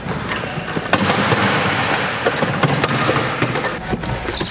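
Wheelchair rugby chairs rolling and clashing on a hardwood court, with a dense run of knocks and bangs starting about a second in.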